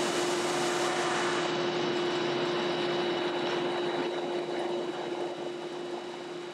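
Wide-belt sander running with a steady hum, and the loud rushing noise of the sanding belt working an oak tabletop that fades away over a few seconds as the board feeds out onto the outfeed conveyor.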